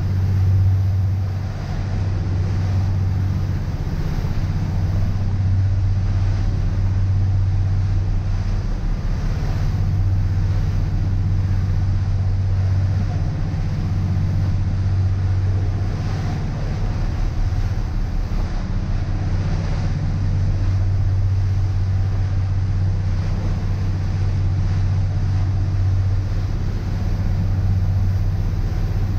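Motor cruiser running at speed across open sea: a steady low engine drone with wind and water rushing past.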